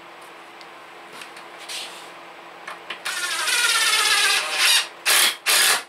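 DeWalt 20V cordless impact driver driving a deck screw through a wooden seat slat into the chair frame. Its motor runs for about a second and a half, rising in pitch, then gives two short bursts near the end as the screw is snugged down. A few light taps of handling come before it.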